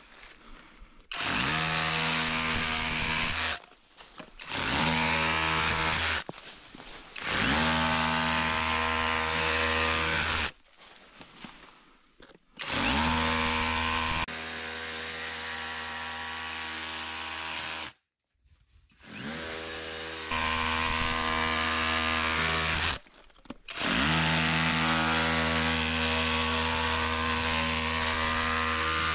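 Handheld electric power tool cutting into a stone treasure box to open it. It runs in about six bursts of a few seconds each with short pauses between them, winding up in pitch each time it is switched on.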